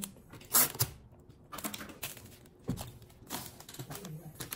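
Florist wrapping paper crackling and rustling as it is folded around a large bunch of rose stems, in short irregular bursts, the sharpest crackle about half a second in.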